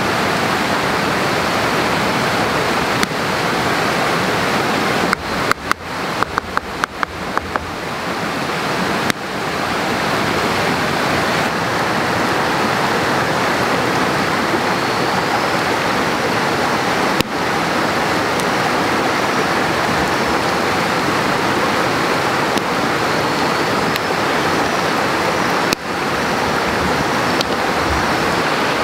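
Steady rushing of flowing water, like a stream. About five seconds in, a quick run of sharp clicks as a knife whittles a wooden stick, with a few single clicks later.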